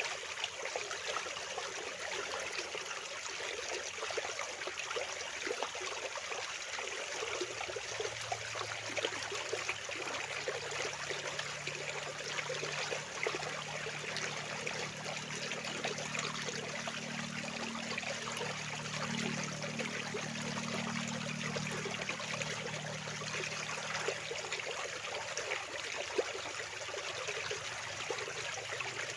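Fast-flowing water rushing steadily, with a fine splashing texture. A faint low hum joins about seven seconds in and continues to near the end.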